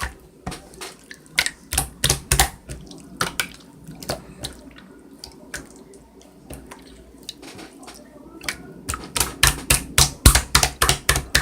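A run of sharp, irregular clicks and taps, spaced out at first and coming in a quick string from about nine seconds in.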